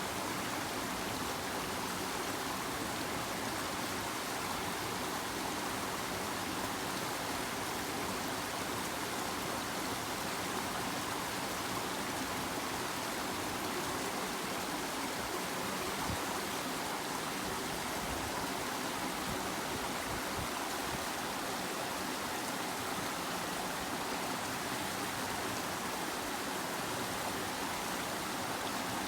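River water flowing, a steady even rush of water noise that does not change.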